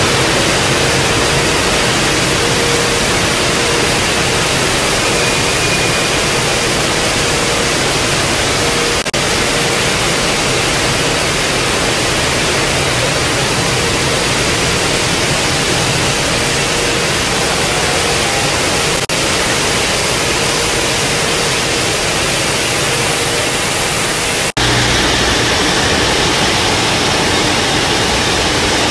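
Dairy and juice factory production-line machinery (bottle fillers and conveyors) running, a loud, steady, even noise. It breaks off for an instant three times where clips join, and the noise changes slightly after the last break.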